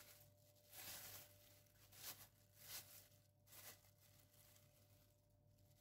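Faint crinkling of a thin plastic bag being peeled off a chilled cake, in several short rustles that stop about four seconds in.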